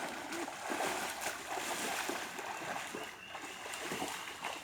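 Irregular splashing and sloshing of pond water.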